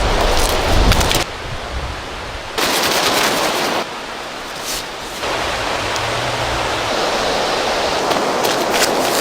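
Rushing river water, a steady hiss whose level drops and comes back abruptly a few times, with sharp crackles near the start and the end.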